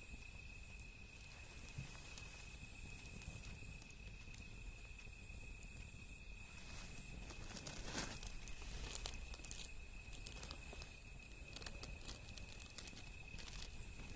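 Wood fire crackling, with scattered sharp pops and snaps that come thickest about halfway through. Behind it runs a steady high-pitched insect trill.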